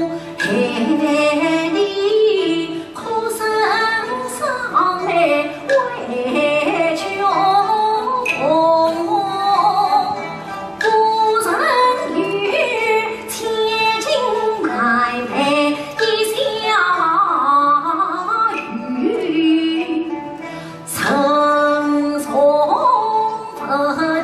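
A woman singing a Yue opera aria in a male role, with instrumental accompaniment.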